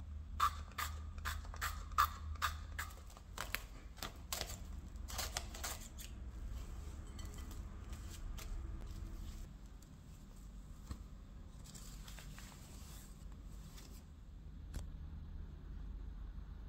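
Plastic cling film pulled, torn off and stretched over a glass bowl: a quick run of sharp crackles and clicks, then quieter rustling.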